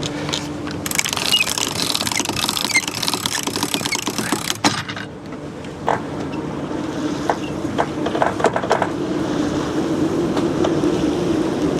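Strong wind rushing over a sailboat and buffeting the microphone, loudest in the first few seconds, with several sharp knocks and rattles of gear aboard.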